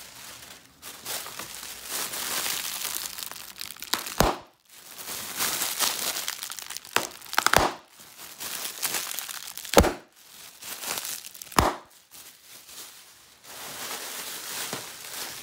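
Plastic air-pillow packing crinkling and rustling as it is pulled out of a shipping box and crushed by hand, with four sharp cracks spread through it.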